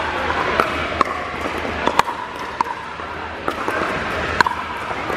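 Pickleball paddles hitting a hard plastic pickleball during rallies: sharp pops with a brief ringing tone, irregular, about once or twice a second. They echo in a large indoor court hall.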